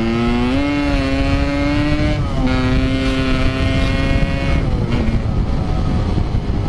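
Yamaha RX King 135cc two-stroke motorcycle engine accelerating hard. The revs climb, flare up about half a second in, drop at a gear change around two seconds in, hold steady, then fall away near five seconds, over wind rush. The rider thinks the clutch is slipping.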